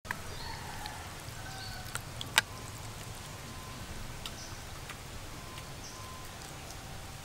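Metal ladle scooping through a bowl of dessert with shaved ice, giving a few light clicks and one sharper knock about two and a half seconds in.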